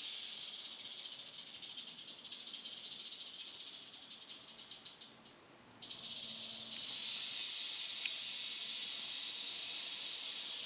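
Western diamondback rattlesnake rattling its tail: a continuous high buzz that slows into separate clicks about four to five seconds in, breaks off for half a second, then resumes as a steady buzz. This is the defensive warning rattle of an agitated snake.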